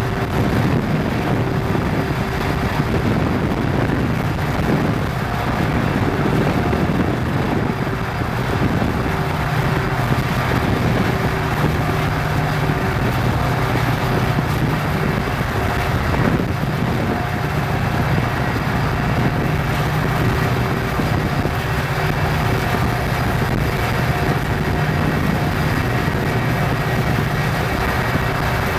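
Diesel locomotives of a freight train running at speed, a steady engine drone over rushing road and wind noise, heard from a vehicle pacing alongside.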